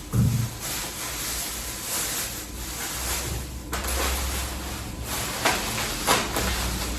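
Groceries being handled and set down: a low thump just after the start, rustling of packaging, and two sharp knocks a little over five and six seconds in.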